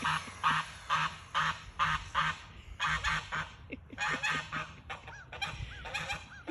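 A goose honking over and over, short calls coming about two or three a second.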